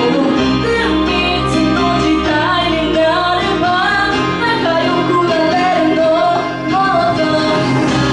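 A woman singing live into a handheld microphone over a loud backing track with bass and a steady beat.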